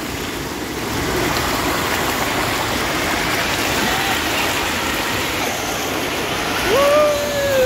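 Steady rush and splash of moving water in a water-park lazy river, with a child's voice calling out briefly near the end.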